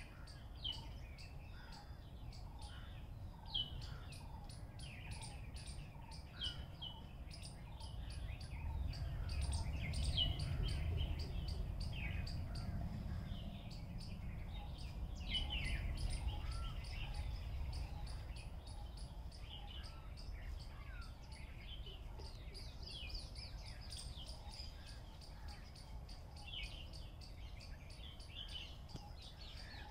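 A chorus of small birds chirping: many short calls and quick downward-sliding notes, over a low rumble that grows louder in the middle.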